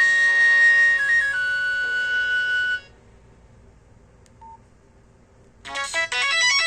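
A Nokia C2-01's speaker playing a retro Nokia ringtone, a melody of held notes that stops about three seconds in. After a short pause with one brief beep, a different ringtone of quick notes starts near the end.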